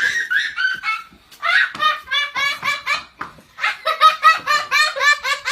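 High-pitched laughter: quick repeated "ha" syllables about five a second, in runs broken by a short pause about a second in and another just past three seconds.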